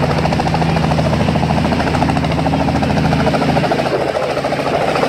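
Small two-bladed helicopter flying low and close, its rotor blades beating in a fast, even pulse over a steady engine drone; the low drone thins a little past halfway.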